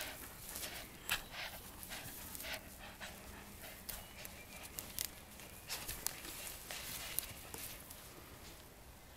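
Husky puppy biting and worrying a feather duster: irregular rustling of the feathers and sharp clicks, tapering off near the end.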